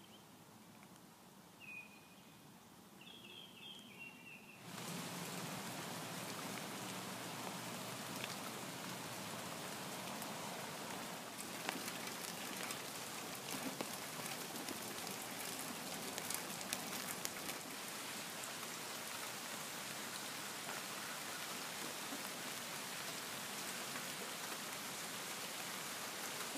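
Steady rain falling on garden plants, with scattered close drops ticking. It cuts in abruptly about five seconds in, after a few short bird chirps.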